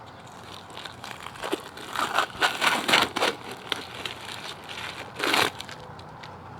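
Adhesive tape being peeled and pulled off a plastic pumpkin-bucket mold. It makes crinkling, tearing rasps in irregular bursts, most of them between about one and a half and three and a half seconds in, with one more near the end.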